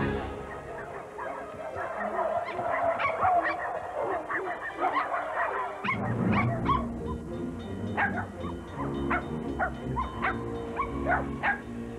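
Several puppies yipping and barking in many quick, short, high calls, over film score music that grows fuller about halfway through.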